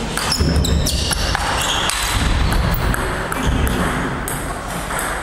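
Table tennis ball clicking off bats and table in a quick exchange in the first second, then sharper clicks more spread out as the ball bounces on the wooden gym floor after the point.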